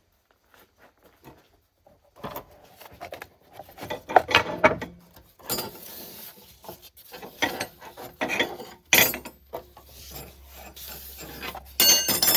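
Metal hand tools being handled: irregular scraping, rubbing and clacking that starts about two seconds in, with a few sharp knocks.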